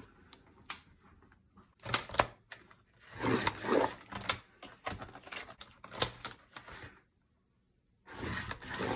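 Paper being cut: sharp clicks and taps, with a longer rasping cut about three to four seconds in. A second of dead silence near the end.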